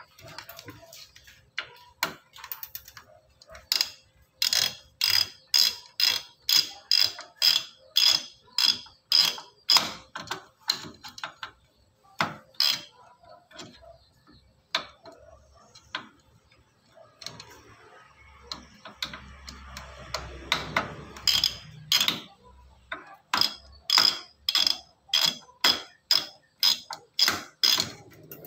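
Sharp ratchet-like clicking, about two clicks a second, in two runs: one in the first half and one near the end, as the CPU cooler on the motherboard is worked loose. In between there is a stretch of rustling handling noise.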